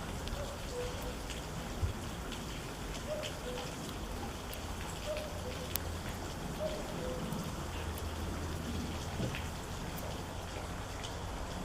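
Steady rain falling, with scattered sharp ticks of individual raindrops striking close by.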